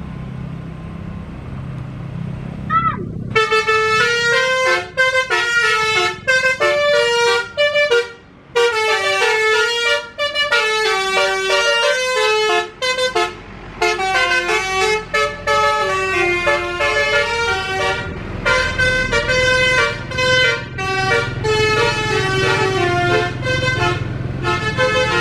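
Tour bus 'telolet' multi-tone musical air horn of the Basuri type, playing a tune of stepped notes with short breaks for about twenty seconds. It starts about three seconds in, over the low rumble of the bus engine.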